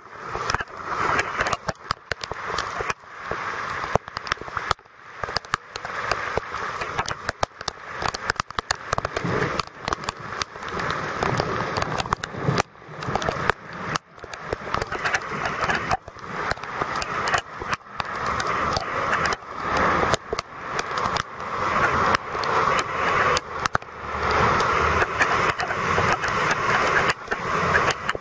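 Heavy rain pattering hard and unevenly, with frequent sudden dips in loudness. Near the end a van drives through the floodwater, and its engine and spray rise under the rain.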